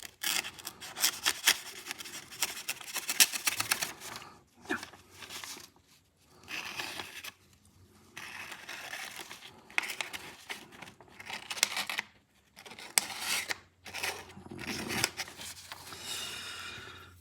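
Dull folding-knife blade dragged through thin phone book paper, tearing and crinkling it rather than slicing, in several rustling strokes with short pauses between them. The tearing is the sign of a blade too dull to cut phone book paper cleanly.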